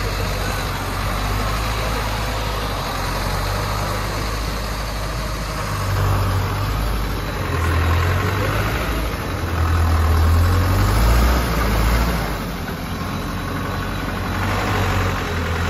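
Diesel engine of a Trường Giang dump truck running as the truck crawls over soft mud, its deep rumble swelling several times as it is given throttle.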